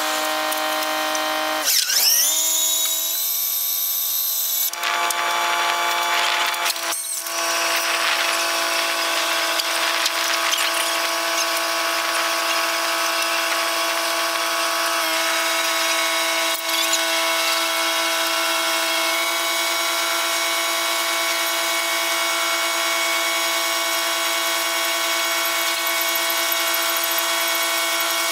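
Steady mechanical whine from the seine boat's machinery as the net is hauled aboard. It dips in pitch and climbs back about two seconds in, and drops out briefly around seven seconds.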